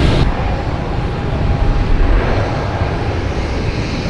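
Jet airliner engine noise: a steady, loud rush heavy in the low end.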